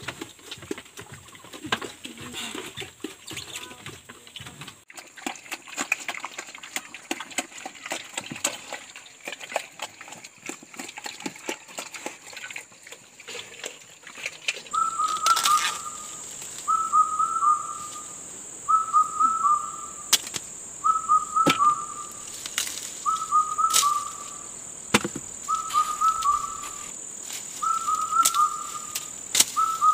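Pigs eating at a wooden trough, with many irregular chomping clicks. From about halfway, a short two-note whistled bird call repeats about every two seconds over a steady high whine, with sharp clicks between the calls.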